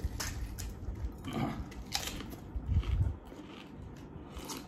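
Crisp golgappa (pani puri) shells being bitten and crunched, with chewing: a run of short, irregular crunches over the first three seconds, then quieter.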